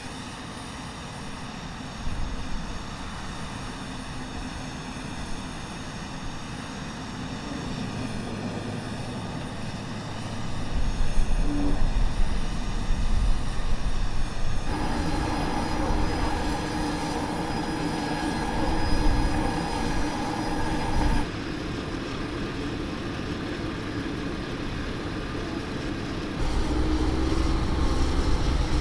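Airfield machinery noise: a steady whine of several high tones over a low rumble, changing at the scene cuts. Near the end, the diesel engine of an M142 HIMARS launcher truck rumbles louder as it drives.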